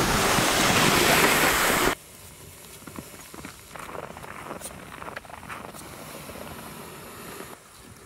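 Loaded plastic pulk sled dragged over snow, heard first from a camera riding on the sled as a loud, steady rushing hiss. About two seconds in it cuts to a much quieter hiss of the sled runners, with scattered crunches of footsteps in snow.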